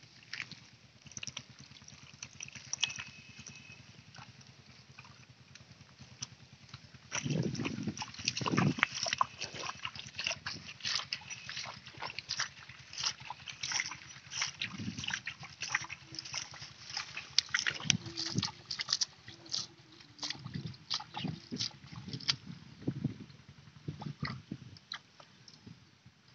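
Hands digging and scooping in wet paddy-field mud and muddy water: irregular squelches, slaps and small splashes. It is quieter at first and gets busier and louder from about seven seconds in.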